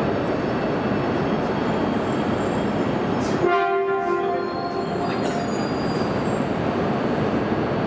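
E6 series Shinkansen creeping slowly toward a coupling, over a steady rumble of train equipment. About three and a half seconds in, a short pitched horn blast sounds for about a second and a half, with faint high squeals around it.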